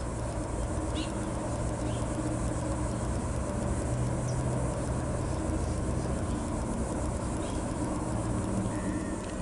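Steady low rumble and hum of distant motor noise, with a few faint, short high bird chirps scattered through it.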